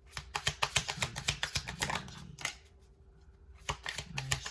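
Tarot deck being shuffled by hand: a quick run of crisp card clicks and flicks for about two and a half seconds, then a shorter burst of them near the end.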